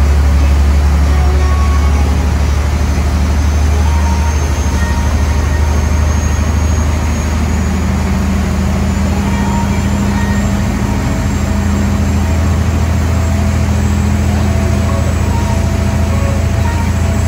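Boat engines running under way, a steady low drone, with the rush of the churning wake and wind over it. A second, higher hum joins about halfway through.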